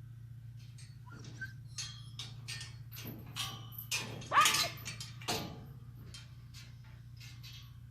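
A horse being led out: an irregular run of knocks and clatter, with a short high falling squeak about four and a half seconds in, the loudest moment, over a steady low hum.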